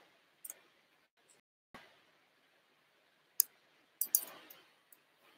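Microphone handling noise: about half a dozen sharp clicks, spaced irregularly, with a short rustle about four seconds in, over faint room hiss.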